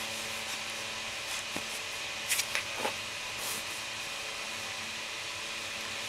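Steady mechanical hum and hiss in the room, with a short cluster of brief noises about two and a half seconds in from a Pembroke Welsh corgi playing with a soft toy.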